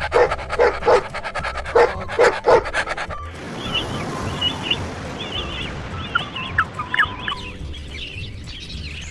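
A dog panting with short yelps, about six loud pulses in three seconds. After a cut, birds chirp over a steady hiss.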